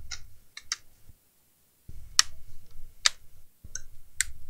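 Handling noise from a laptop display lid held in clamps: a series of sharp single clicks at uneven gaps over a light rumble of hands on the bench. The sound cuts out completely for under a second near the middle.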